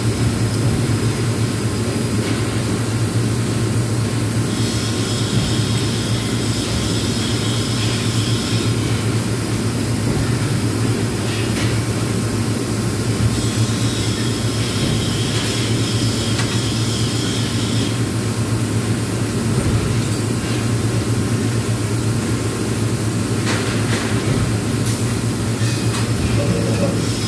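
Steady low hum of shop machinery. A high, steady whine comes in twice, each time for about four seconds.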